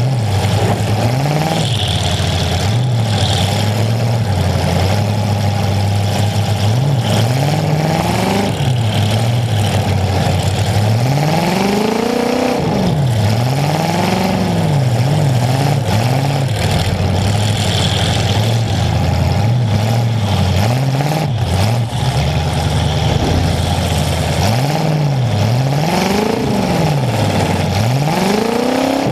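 Demolition derby car's engine running loud through short upright exhaust pipes, close to the microphone, revved up and down again and again between spells of steady running.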